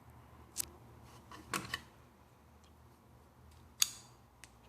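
A handful of short, light clicks and taps from handling an open plastic socket-set case and its sockets. The sharpest click comes near the end.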